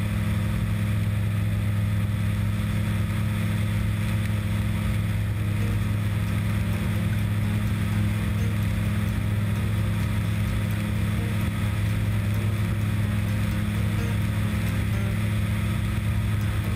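Aero Adventure Aventura II light amphibian's engine and propeller droning steadily in cruise flight, with a constant low hum over a rushing haze of airflow.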